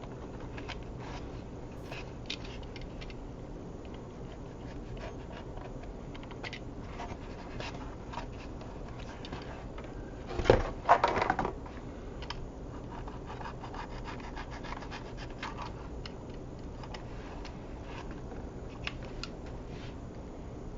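Faint scratching and small clicks of hands working on an RC plane's foam wing repair, with a louder clatter about halfway through.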